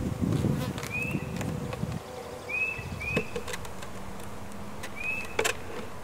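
Honeybees buzzing around an open hive, package bees just released from their cage, while a wooden hive body is lowered onto it with a couple of sharp wooden knocks.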